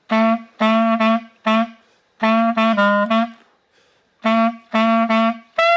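Clarinet playing a phrase of short repeated notes, mostly on one pitch (D), in small groups with brief gaps. Near the end a short, higher squeak slips out of the reed.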